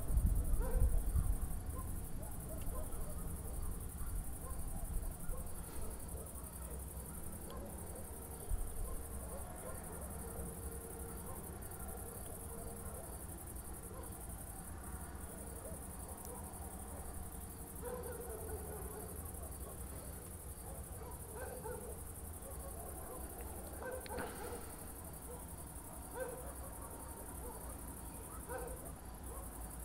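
Thunder rumbling low at the start and fading away within about two seconds, over a steady chirping of crickets.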